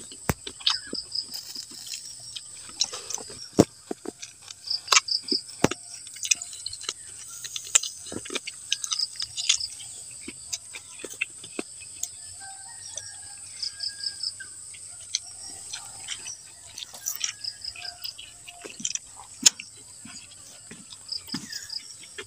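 Close-up eating sounds: sharp clicks, smacks and crackles of chewing and of fingers handling grilled fish and rice on banana leaves. Behind them runs a steady high insect drone with repeated pulsed chirps.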